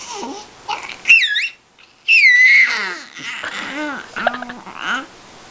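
A baby making vocal noises: two short, high, wavering squeals, then a run of babbling sounds that slide down and up in pitch.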